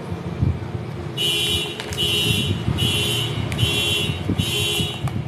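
An electronic alarm or buzzer beeping in a steady repeating pattern, starting about a second in: five high-pitched pulses of about half a second each, separated by short gaps.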